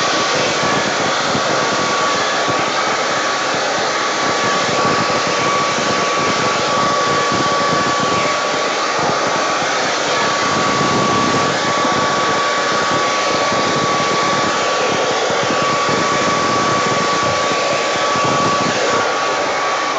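Hair dryer running steadily with a constant whine, blowing wet acrylic paint across the canvas for a dutch pour. It is switched off right at the end, and the whine drops away as it spins down.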